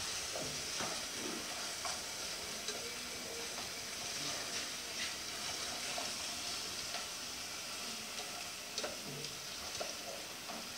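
Chopped onion frying gently in oil in an aluminium saucepan, a quiet steady sizzle, with a wooden spoon stirring and lightly scraping the pot now and then.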